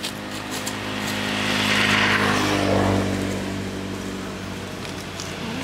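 A motor vehicle passing by on the road: engine and tyre noise swell to a peak about two to three seconds in, then fade, the engine note dropping in pitch as it goes past.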